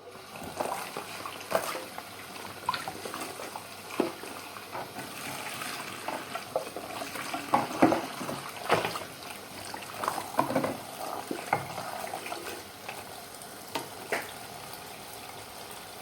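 Water running steadily from a tap, with dishes and utensils clattering at irregular moments as they are washed by hand.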